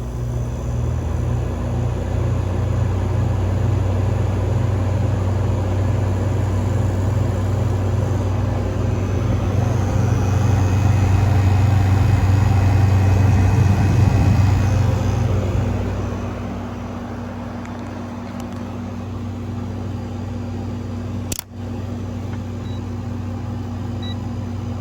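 A 5,000 BTU window air conditioner running, its compressor and fan making a steady low hum. The hum grows louder over the first dozen seconds, then drops to a quieter level about 16 seconds in. There is one brief click near the end.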